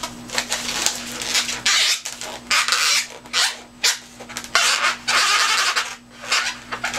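A marker pen rubbing on an inflated latex balloon as its eyes are coloured in, in a series of quick, irregular strokes.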